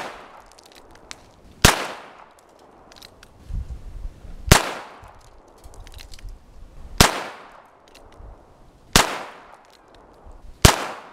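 H&R Model 929 Sidekick .22 LR revolver fired single action, five sharp shots spaced about two to two and a half seconds apart, each with a short fading tail.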